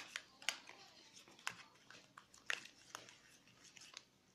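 A plastic spoon stirring thick glue-and-detergent slime in a plastic tub: faint, irregular clicks and sticky pops as the spoon works the mixture.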